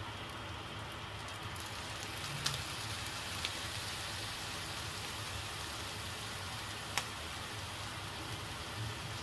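Lamb offal sizzling steadily in a frying pan, the hiss turning brighter about a second and a half in, with a few light knocks of a wooden spoon against the pan.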